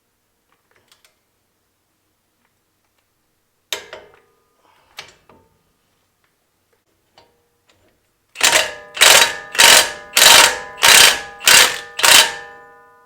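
Steel tools working on a new wheel bearing hub assembly as it is fitted into the steering knuckle: two single metallic knocks, then seven loud, evenly spaced blows about 0.6 s apart, each ringing out like struck metal.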